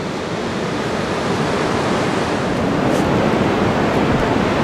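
Steady rush of ocean surf on a sandy beach, growing slightly louder over the first couple of seconds.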